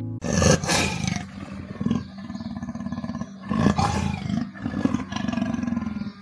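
Leopard growling and roaring: a loud call about half a second in and another near the four-second mark, with a rough, rapidly pulsing growl between them.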